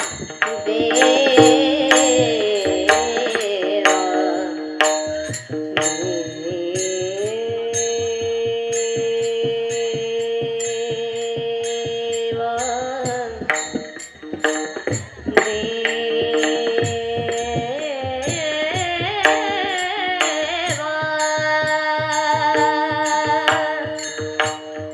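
Devotional kirtan music: a woman singing, with wavering ornamented phrases and long held notes, over drum and cymbal strokes that keep a steady beat.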